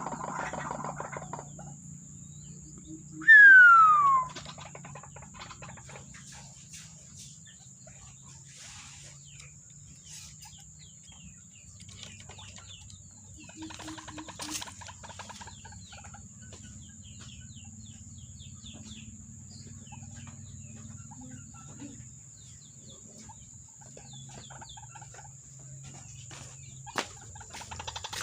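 A loud falling whistle about three seconds in, then a tame white-breasted waterhen (ruak-ruak) giving soft clucking calls and flapping its wings.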